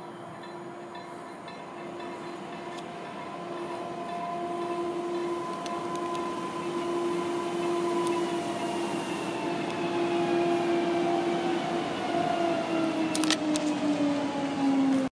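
Newag Impuls 2 electric multiple unit pulling into a station, growing louder as it approaches. Its electric traction drive whines in several tones that slide down in pitch as it brakes to a stop. A few sharp clicks come near the end.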